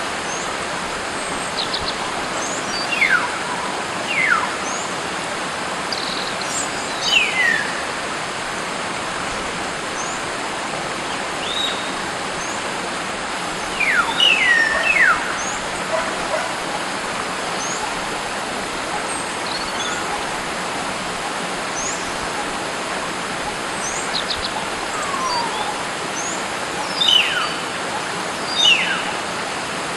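Common hill myna calling in the wild: sharp, falling whistles every few seconds, a few in quick pairs, over a steady rushing hiss. Faint short high chirps repeat in between.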